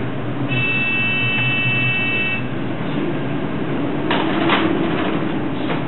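Steady rush of storm wind and sea heard from inside a bulk carrier's bridge, with a low hum under it. A high steady electronic tone sounds for about two seconds near the start, and a couple of short surges of noise come in the second half.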